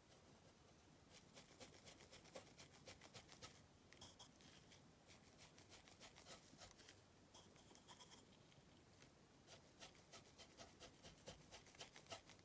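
Faint, rapid scratching of a small stiff brush being stroked over the side of a model boxcar, working black weathering chalk powder into the surface.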